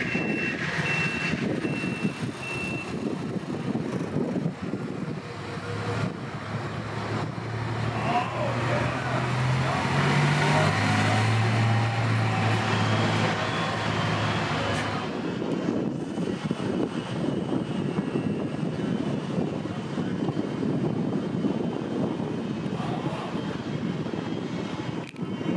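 Diesel locomotive engine running down the track, its low drone stepping up in pitch about six seconds in, holding, then easing off around fifteen seconds in. A backup beeper sounds in even beeps for the first few seconds.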